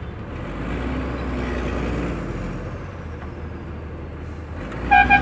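Bus engine running with a steady low rumble, heard from inside the cabin while the bus creeps forward in traffic. Near the end a vehicle horn gives two short beeps.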